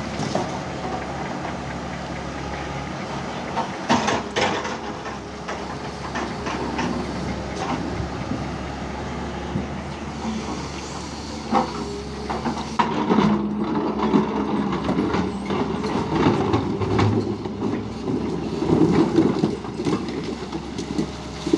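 JCB backhoe loader's diesel engine running steadily while digging, with scattered knocks and clanks. The sound grows louder and more uneven in the second half.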